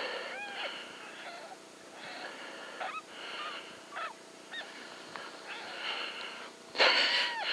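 Short arched animal calls, honk- or yip-like, come singly and in short runs. About two-thirds of the way in there is one loud sudden burst, and a quick run of the same calls follows it.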